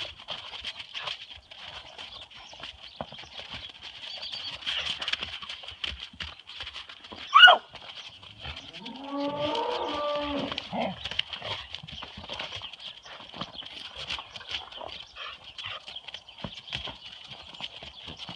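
A sheep bleating once, a wavering call of about two seconds roughly halfway through, over the scattered crunch of feet moving in snow. Just before the bleat comes a short, sharp high squeal, the loudest sound here.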